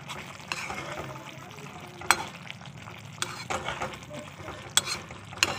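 A metal spoon stirring thick water chestnut curry in a kadhai as it cooks on low gas, with the food sizzling softly. The spoon knocks sharply against the pan a few times.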